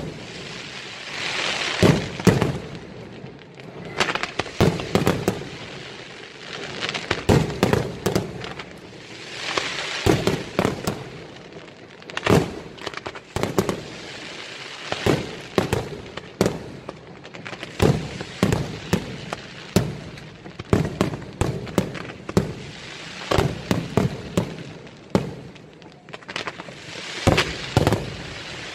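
Fireworks display from a Sanseverese-style batteria: comets and shells fired in rapid succession, with sharp bangs in clusters every second or two and a hissing rush between them.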